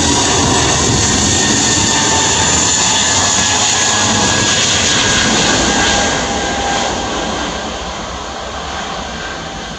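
Airbus A320neo's twin CFM LEAP-1A turbofans at takeoff thrust as the airliner accelerates down the runway: loud, steady jet noise with a faint whine that slides lower in pitch, fading from about six seconds in as the aircraft moves away.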